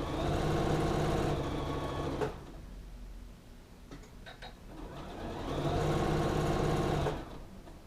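Sewing machine stitching in two runs of about two seconds each, stopping sharply after each run, with a few faint clicks in the pause between them.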